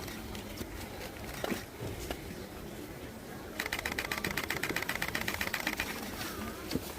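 Camera shutters firing in rapid continuous-shooting bursts, a fast run of clicks about halfway through, over a low crowd murmur.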